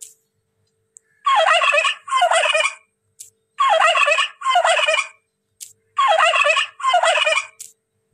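Turkey gobbling: six loud gobbles in three evenly spaced pairs.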